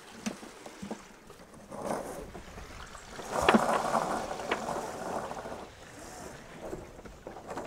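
Headsail furling line being hauled in by hand on a sailboat: rope rasping through its blocks in bursts, loudest in the middle, with a few sharp clicks.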